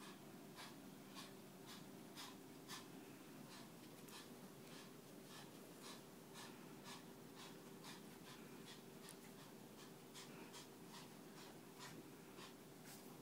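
Near silence: quiet room tone with a faint steady hum and soft, short scratchy ticks about twice a second.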